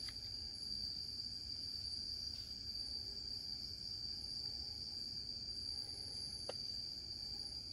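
Steady, high-pitched drone of an insect chorus, unbroken throughout, with one soft click about six and a half seconds in.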